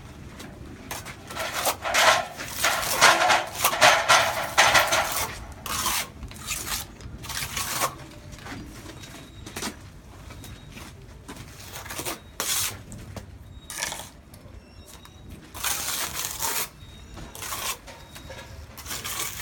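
Steel mason's trowel scraping and clinking against mortar and masonry, in repeated bursts a second or two long with short pauses between.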